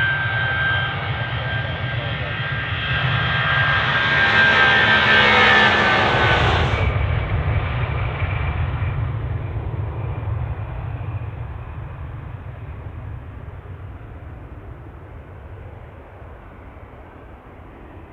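Boeing 757-200 jet engines at takeoff power: a loud engine noise with a high whine that peaks about five seconds in. The whine drops away soon after, and the noise then fades steadily as the aircraft moves off.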